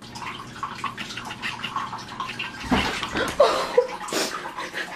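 Water splashing and sloshing, with several louder splashes near the middle and a short cry about three and a half seconds in.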